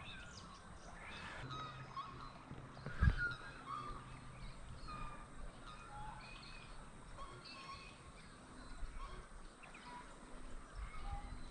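Birds calling from the riverside trees in short, scattered chirps, with a single soft knock about three seconds in.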